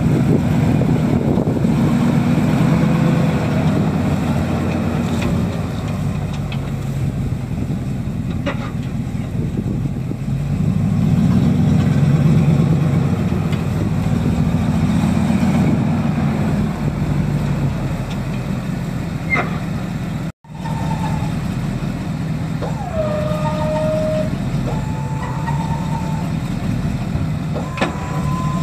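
Ford 6.2-litre gas V8 of a Super Duty tow truck running with its tailpipe removed, a steady low rumble that grows louder for stretches. After a cut about 20 seconds in, steady tones come in over the engine and step up in pitch a few times.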